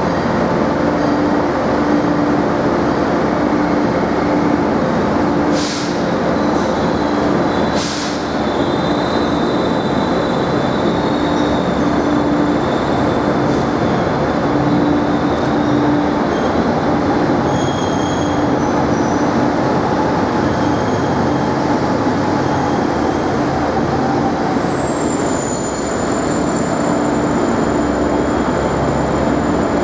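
Passenger train running, a loud steady rumble with a pulsing hum and a thin high whine that drifts up and then down in pitch. Two short sharp sounds come about six and eight seconds in.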